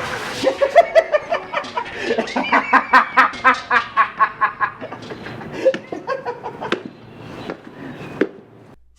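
A long laugh in the clown character's voice: a run of quick, evenly spaced ha-ha pulses that thins out after about five seconds and stops just before the end.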